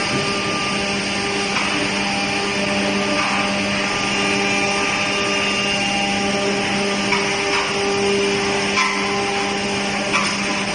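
Woodworking machinery running: a steady mechanical hum and hiss, with a few short knocks in the second half.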